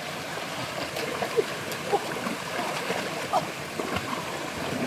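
Shallow rocky stream trickling and gurgling steadily, with many small plinks and a few brief small splashes.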